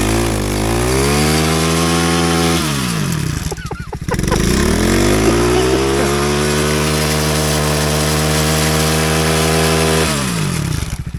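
Small engine run up to full throttle twice: its pitch climbs and holds high for a couple of seconds, drops back with a brief break, then climbs again and holds steady for about six seconds before falling away near the end.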